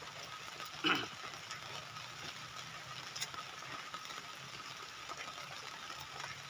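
Light drizzle hissing steadily on a plastic tarp roof, with a short scrape about a second in.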